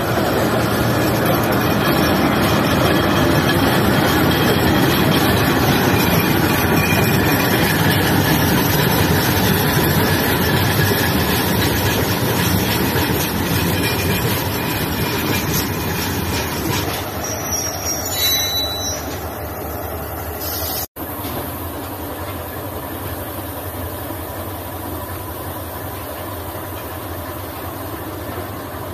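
Railway wagons of a train hauled by a TGM8KM diesel shunting locomotive rolling past close by: a loud, dense noise of steel wheels on rail with clicks and some squeal. The noise eases after about 17 seconds, and after a break about 21 seconds in a quieter, steadier rumble of the train further off goes on.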